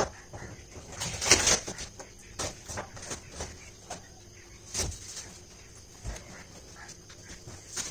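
Rustling and knocking from a cloth cover and plastic-wrapped cardboard boxes being handled and moved, in irregular bursts, the loudest about a second and a half in.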